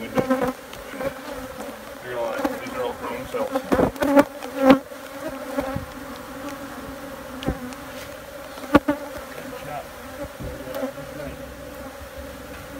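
A disturbed colony of Africanized honey bees buzzing in a steady drone, many flying close around the microphone as their comb is cut out of the wall. A few sharp knocks break through it, the loudest about four and a half and nine seconds in.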